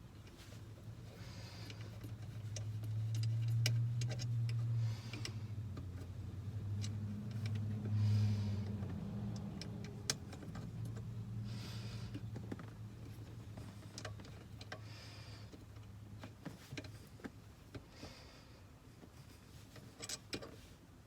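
Scattered light metallic clicks and taps of hand tools working on a small nut. Under them a low droning hum swells over the first few seconds and dies away about two-thirds of the way through.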